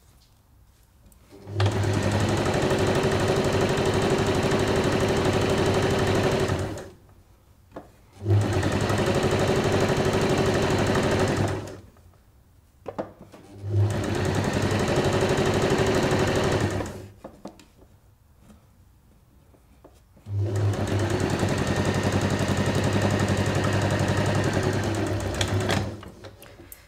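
Electric sewing machine stitching a seam through folded fabric, running in four stretches of a few seconds each and stopping briefly between them.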